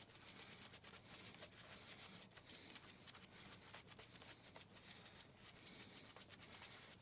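Faint, dense scratchy crackle of a shaving brush working lather onto the face.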